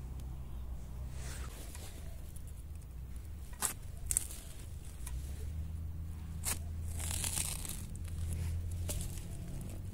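A long-bladed knife chopping into soil and the base of a bamboo shoot, with a few sharp cuts and dry bamboo leaves crackling and rustling, over a low steady rumble.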